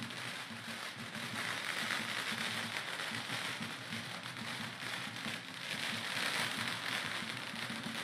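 A string of firecrackers crackling in a rapid, dense run. It grows louder twice, about two seconds in and again about six seconds in.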